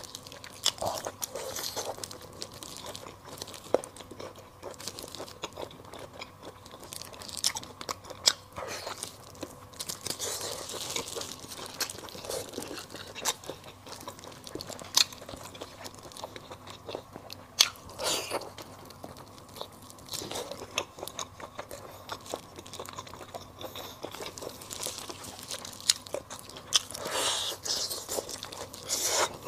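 Close-miked eating of braised pig tongue: biting and chewing with an irregular run of sharp mouth clicks and smacks.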